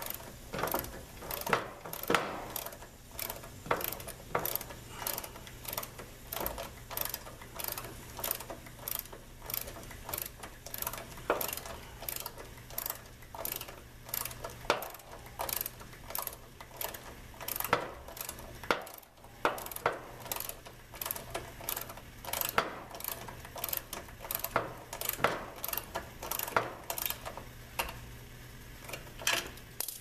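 Refrigeration ratchet wrench clicking steadily, about two to three clicks a second, as it turns the service valve stems on an air conditioner's condensing unit to open the valves back up after a pump down.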